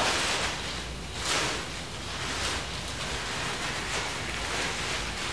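Steady background hiss of room noise with a few faint rustles.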